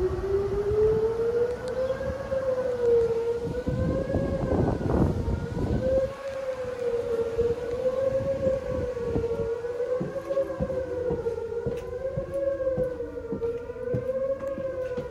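Outdoor civil defense warning siren winding up, then sounding a steady wail whose pitch wavers slowly up and down. A second, lower siren tone slides down near the end. Wind buffets the microphone underneath.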